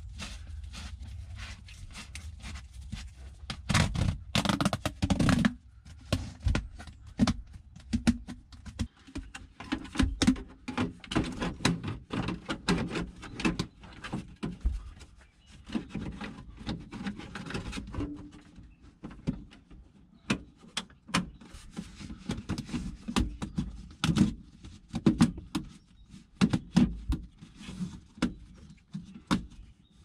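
Handling noise from an EcoFlow Wave portable air conditioner and its ribbed plastic exhaust hose: irregular knocks, thunks and rubbing as the unit is shifted on the wooden floor and the hose is worked onto its floor fitting, with a cluster of louder knocks about four seconds in.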